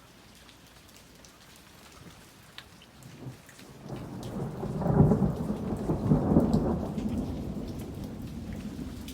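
Steady rain with scattered drops, then a low roll of thunder that builds about four seconds in, peaks, and rumbles away over the next few seconds.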